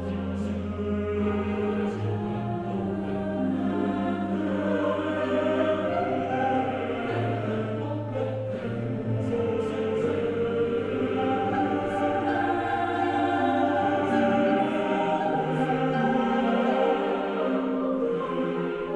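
Background choral music: voices singing held chords over a low sustained bass note that changes pitch a few times.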